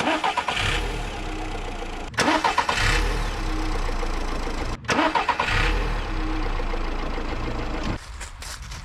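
A motor vehicle's engine running close by, swelling louder three times and broken twice by brief sudden gaps.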